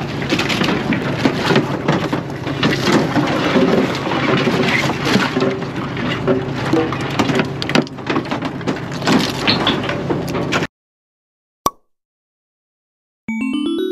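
Live horsehair crabs' spiny shells clattering and scraping against each other and a stainless-steel sorting tray as they are handled, with many sharp clicks over a boat engine's steady hum. The sound cuts off abruptly after about ten and a half seconds; after a single tick, a short chime jingle starts near the end.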